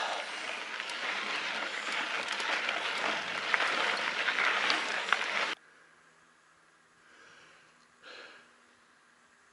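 A mountain bike climbing a loose dirt trail: a steady rush of tyre and trail noise with small clicks and rattles, which cuts off suddenly a little past halfway. Near silence follows, with two faint breaths.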